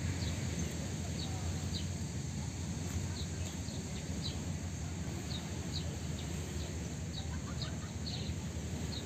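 A bird chirping over and over, short high notes about two a second, over a steady low background rumble.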